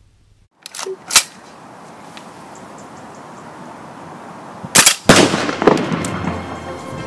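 Gunfire and a blast: a small crack, then a loud sharp shot about a second in. A hiss then swells, and near five seconds come two quick shots followed at once by the loudest bang, which trails off with smaller pops as the target bursts into smoke.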